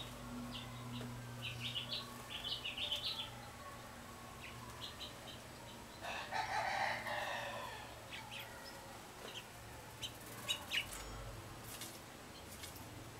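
Small wild songbirds chirping in quick clusters of high chips, with one longer, harsher call lasting about a second and a half about six seconds in.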